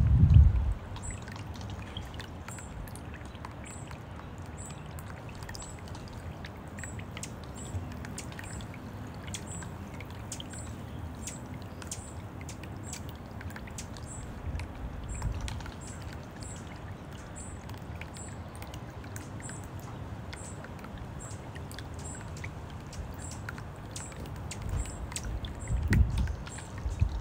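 Small electric fountain pump's water jet splashing and trickling steadily back into a shallow birdbath. A high double chirp repeats about once a second in the background, and a low rumble is heard briefly at the start and again near the end.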